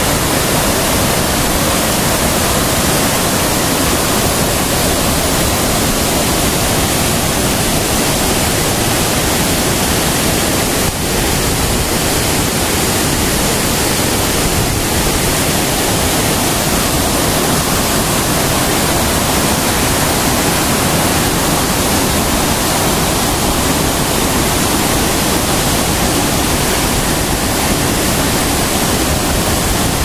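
Waterfall and stream water rushing over rocks, loud and steady.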